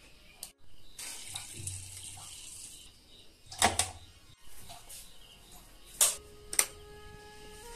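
Kitchen tap running for a couple of seconds, then a few sharp knocks and clatters. Background music comes in near the end.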